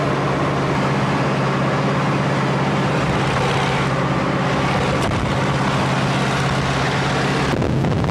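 Light aircraft in flight: its piston engine and propeller running steadily, a loud drone with rushing air noise; the drone's pitch shifts a little near the end.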